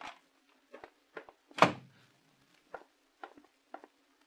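Radio-drama sound effects of footsteps walking away: short taps about two a second, with one louder, deeper thump about a second and a half in, like a door.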